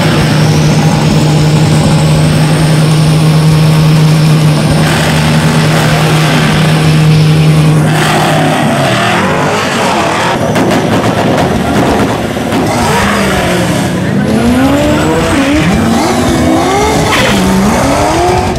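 Drag race car engines: one is held at a steady high pitch for about eight seconds, then engine revs rise and fall repeatedly through the rest.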